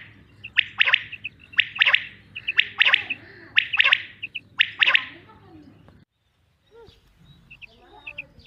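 Common quail calling: loud sharp calls about once a second, with quicker, smaller notes between them, stopping abruptly about six seconds in. After a short gap, fainter calls begin again near the end.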